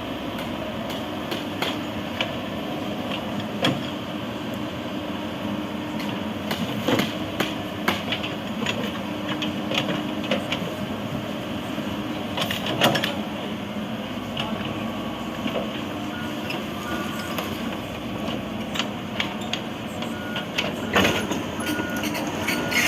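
Excavator engine running steadily, with repeated sharp metallic clanks and knocks. In the last third a reversing alarm beeps in short repeated pips.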